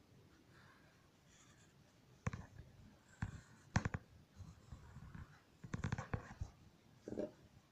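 Pencils being handled on a drawing desk: a handful of sharp clicks and taps in small clusters, over faint pencil scratching on paper.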